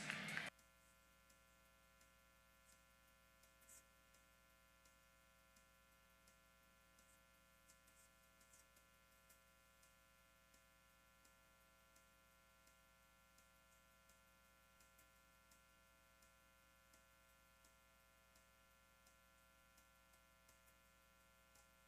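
Near silence: a faint, steady electrical hum with a few faint ticks. Louder noise cuts off suddenly about half a second in.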